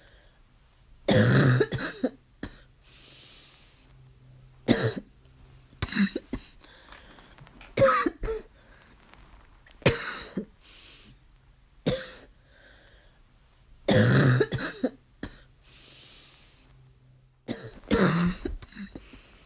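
A harsh, barking cough in a long fit, with a cough or short cluster of coughs about every two seconds.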